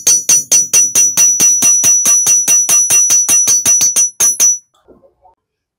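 A hammer striking metal in a fast, even run of about four to five blows a second, each blow ringing with the same high metallic tone. It breaks off briefly about four seconds in, then stops after two more blows.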